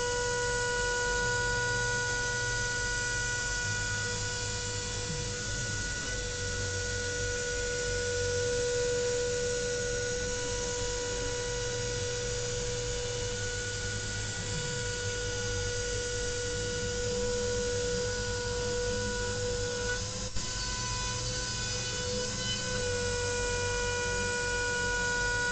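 CNC machine milling 10 mm aluminium: the spindle runs with a steady high whine made of several even tones over a low rumble.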